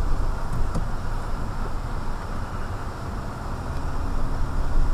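A vehicle's engine and tyres rolling slowly over a gravel track, a steady low noise heard from inside the vehicle.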